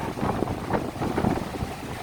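Wind gusting and buffeting the microphone in uneven low rumbles.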